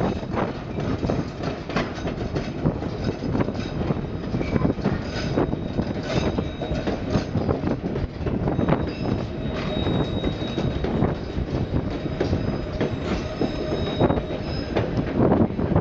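White Pass & Yukon Route narrow-gauge train running along the track, its wheels clattering over the rails in a steady stream of clicks. In the second half there is a thin, high wheel squeal.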